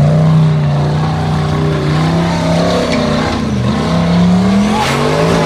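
Formula offroad buggy's engine running hard at high revs under load up a steep dirt hill, its pitch wavering, dipping about three and a half seconds in and then rising again.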